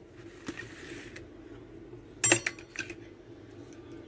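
A metal spoon clinks sharply against a bowl a few times about two seconds in, while yogurt marinade is spooned onto pieces of liver. A faint steady hum runs underneath.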